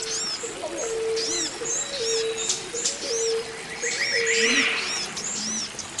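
Forest birds calling together. A run of about six low, even whistled notes repeats roughly every three-quarters of a second and stops a little past halfway, under many short, high, arched chirps from other birds.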